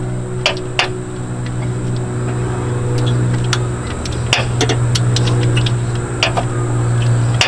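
Scattered clicks and light metal knocks from a ratcheting spanner working the alternator's rear lower mounting bolt, over a steady low hum.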